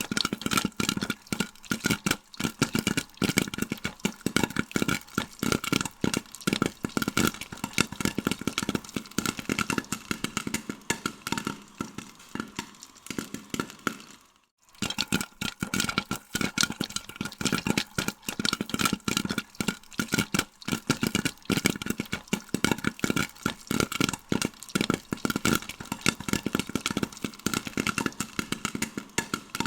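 Popcorn popping in a microwave: a dense, fast, irregular run of sharp pops over a steady hum. The sound cuts out briefly about halfway through, then the popping resumes.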